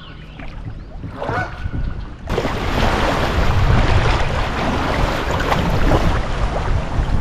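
A bird calls once, about a second in, over quiet river sound. From about two seconds in, a loud steady rush of moving river water around the kayak, with wind buffeting the microphone, takes over suddenly.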